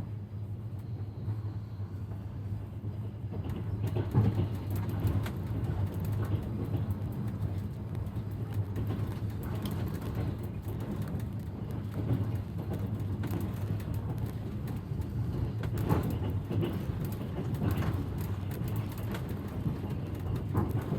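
Railway carriage running along the track: a steady low rumble, with the wheels knocking on the rails every few seconds.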